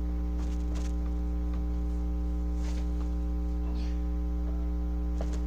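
Steady electrical mains hum, a low buzz with many overtones, with a few faint knocks and rustles scattered through it.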